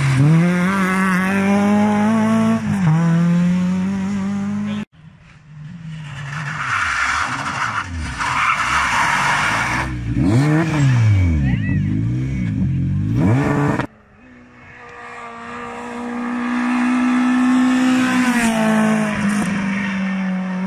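Rally car engines revving hard as the cars take corners and pass, in three clips cut one after another. The engine pitch climbs and drops sharply with each gear change.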